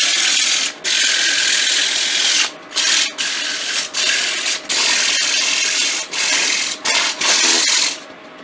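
80-grit sandpaper held against a softwood pine table leg spinning on a wood lathe, making a rough, steady hiss broken by several brief gaps as the paper is lifted and shifted along the leg. The sanding stops near the end.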